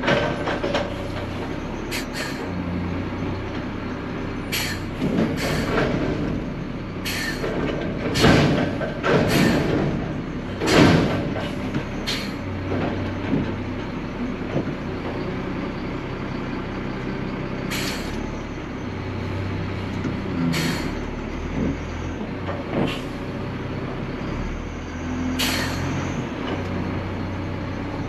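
Garbage truck's engine running from inside the cab while driving, its low drone rising and falling with speed, with a dozen or so loud clanks and rattles from the truck.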